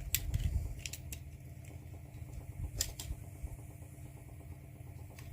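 Scattered sharp clicks of small brass motor parts and hand tools being handled, a few seconds apart, over a steady low hum.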